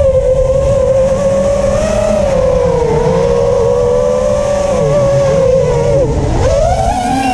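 FPV quadcopter's brushless motors (HGLRC Aeolus 2306.5, 1900kv) spinning tri-blade props in flight: a loud steady whine whose pitch shifts with throttle. It drops sharply about six seconds in, then climbs again near the end, over a low rumble.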